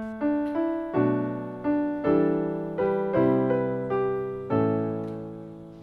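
Piano playing the introduction to a sung psalm refrain: a slow run of chords, each struck and decaying, with the last one held and fading away near the end.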